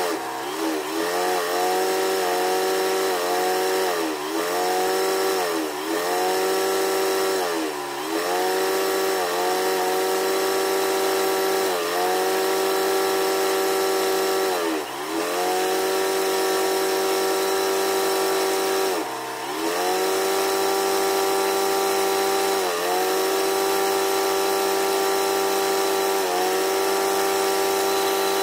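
A motor running with a steady hum. About ten times, at uneven gaps of a few seconds, its pitch sags for a moment and comes back up, as a motor does when briefly loaded.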